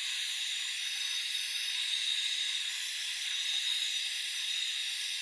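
INGCO HG200028 2000 W heat gun running on its second setting, a steady hiss of blown air with a thin high whine, while it shrinks heat-shrink tubing onto a cable.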